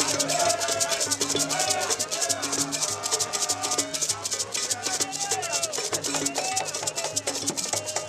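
Background music with a fast, steady shaker rhythm over a repeating bass line.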